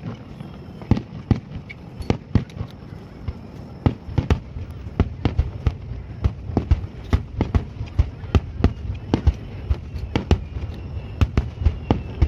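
Fireworks display: a rapid, irregular string of sharp bangs from bursting shells, often several a second, over a continuous low rumble.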